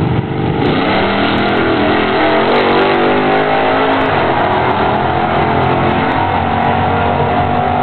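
A big-block V8 Chevy race truck and an LT1 V8 Camaro launch side by side at full throttle about half a second in. Both engines rise in pitch through the gears as the two vehicles pass and pull away down the drag strip.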